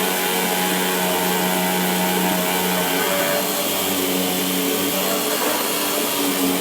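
AOKE DCZ70 CNC flatbed cutter running, a steady whir with held tones that shift about halfway through.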